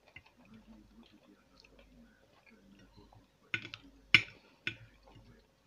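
Metal fork clicking and scraping against a glass plate: a few sharp clicks come close together from about three and a half seconds in, the loudest just after four seconds. Before that there is only faint mouth-noise from chewing.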